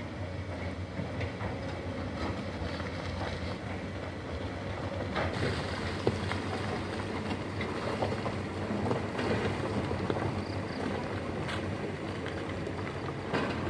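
Distant heavy construction machinery: excavators' diesel engines running steadily, with scattered clanks and one sharper knock about six seconds in.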